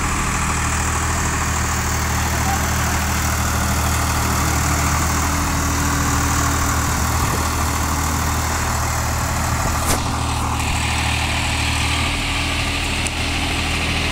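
Diesel engines of a Swaraj 855 FE tractor and a stuck John Deere 5050D tractor running steadily, as the Swaraj pulls the mired tractor out of the mud on a tow chain. A brief click about ten seconds in, and the engine note shifts slightly about two seconds later.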